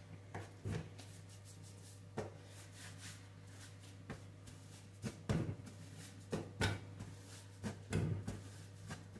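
Irregular soft knocks, taps and rubbing of hands handling bread dough on a kitchen work surface, over a steady low hum.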